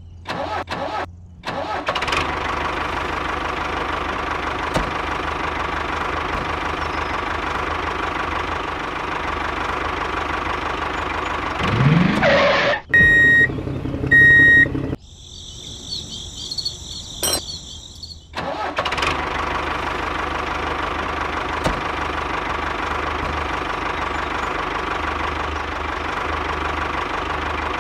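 Engine of a miniature two-wheel walking tractor starting about two seconds in and running steadily. In the middle it is broken by a rising whoosh, a few short beeps and a warbling high tone, then the engine sound comes back and runs on.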